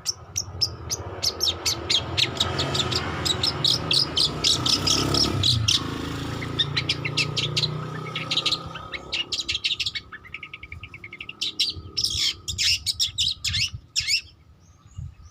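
Young long-tailed shrike singing its practice subsong: a rapid run of short, scratchy chips and chattering notes, broken by brief pauses, over a low background rumble that fades out around the middle.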